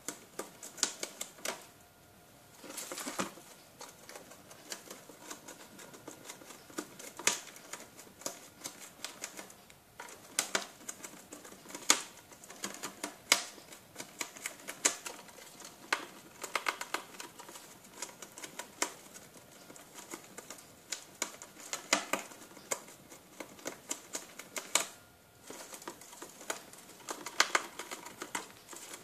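A gerbil gnawing and tearing at a cardboard box: irregular crisp crackles and snaps, some in quick clusters, with short pauses.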